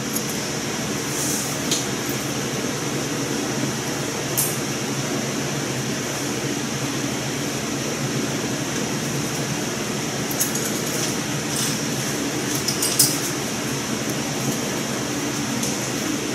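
Steady room noise: the hum and hiss of a ventilation fan, with a few small clicks and taps scattered through, the sharpest about three-quarters of the way in.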